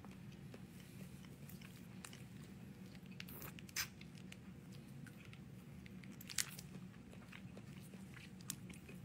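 Faint mouth sounds of someone eating grape jelly sucked from a small jelly cup: two short, sharp slurps about four and six and a half seconds in, with small wet clicks between, over a low steady room hum.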